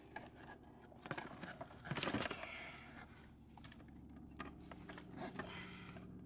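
Scattered light clicks and knocks of things being handled, loudest about one and two seconds in, with a faint steady hum coming in about four seconds in.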